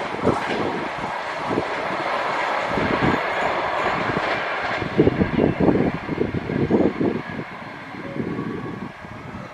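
Train running through at speed, its wheels clattering in repeated knocks over the rail joints; the noise dies down near the end.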